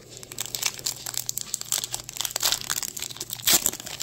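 Foil booster-pack wrapper crinkling as it is handled, with a louder rip about three and a half seconds in as the pack is torn open.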